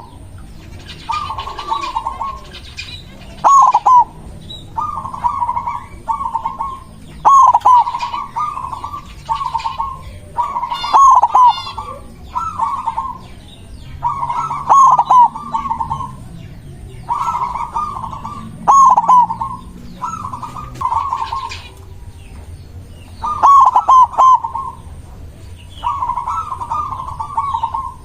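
Zebra dove (perkutut) cooing over and over in short, rolling, trilled phrases, about one every second or two. Thin high chirps from other small birds come in between.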